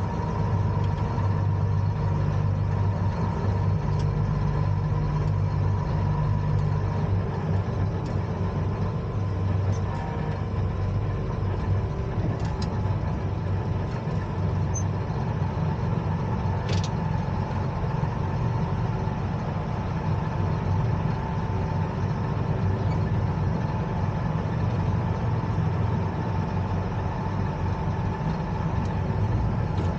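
Allis-Chalmers 8030 tractor's six-cylinder turbodiesel running steadily, with a few faint clicks.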